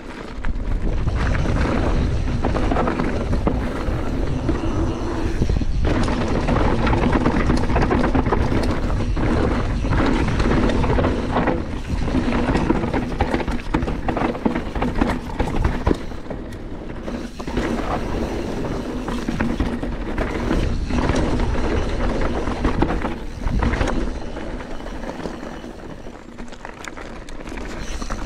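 Canyon Torque CF 9 full-suspension mountain bike riding fast down a dirt bike-park trail, heard from a chest-mounted camera: tyres rolling over the ground, wind rush, and frequent knocks and rattles from the bike over bumps.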